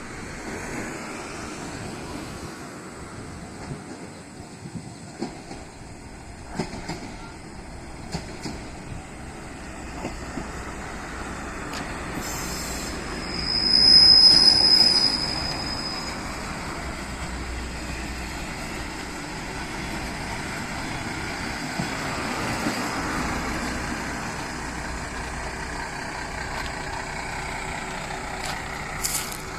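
Diesel railcar running on the line with a steady rumble. A loud, high-pitched metallic squeal from the running gear lasts about two seconds around the middle.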